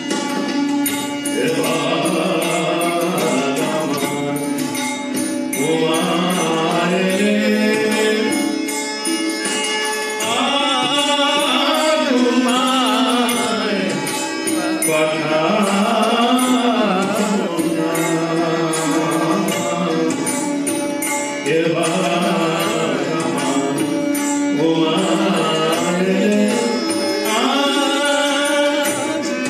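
A man singing a Bengali Agomoni devotional song with instrumental accompaniment, the melody bending up and down in long phrases.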